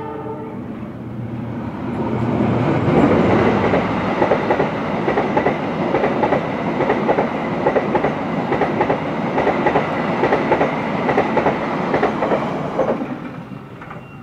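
KA Taksaka passenger train of stainless-steel K1 2018 executive coaches passing close by at speed: a loud rush of wheel and rail noise with a rapid clickety-clack of wheels over rail joints. It builds about two seconds in and dies away near the end as the last coach goes by.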